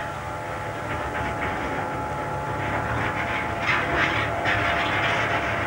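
Railway train running: a steady low engine rumble with a high whine held over it.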